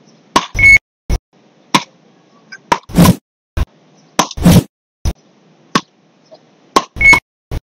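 Wooden beach rackets hitting the ball back and forth in a rally: sharp knocks every half second to a second, with several louder, longer bursts among them and a short high beep twice.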